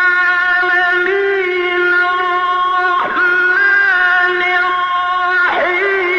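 Melodic chanted Quran recitation: a single voice holding long, drawn-out notes, with brief sliding ornaments about three seconds in and again near the end.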